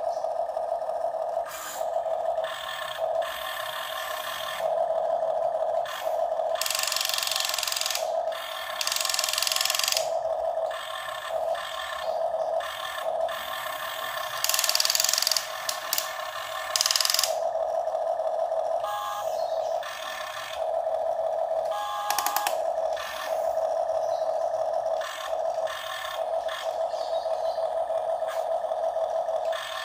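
Huina RC excavator's small electric gear motors whining in short stop-start runs as the boom, arm and bucket are worked. Two longer spells of harsher rasping noise come about a quarter of the way in and again around the middle.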